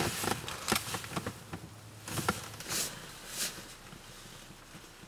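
Irregular soft rustling and small clicks of a bagel being handled and eaten, thinning out after about three and a half seconds.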